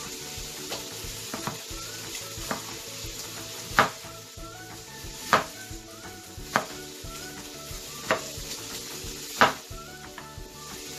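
Kitchen knife slicing a peeled potato thinly on a plastic cutting board, the blade knocking on the board about once every second or so, eight times, over a steady hiss.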